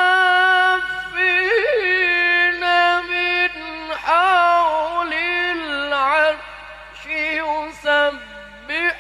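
A young man reciting the Qur'an in the melodic mujawwad style into a handheld microphone, holding long high notes and running quick ornamental turns between them. Near the end the voice drops lower and softer before the next phrase.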